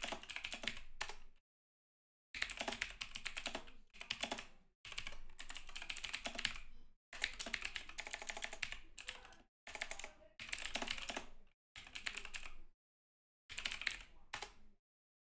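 Typing on a Razer computer keyboard: runs of rapid keystrokes with short pauses between them.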